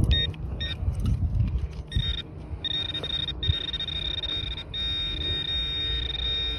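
Handheld metal-detecting pinpointer probe giving two short beeps, then another beep about two seconds in, then buzzing almost without break as its tip is held by a coin in the dug hole, which signals the target is right at the tip.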